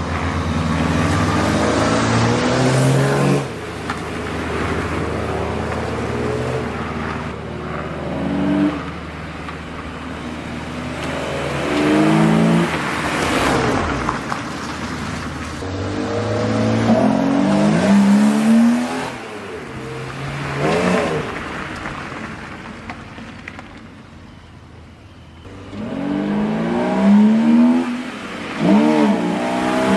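BMW E36 328i's 2.8-litre inline-six with a Dinan cold-air intake, revving hard through the gears. The engine note climbs in pitch, drops at each upshift and climbs again, several times over, with a quieter lull a little past the middle. The intake's loud induction noise comes in at higher revs and full throttle.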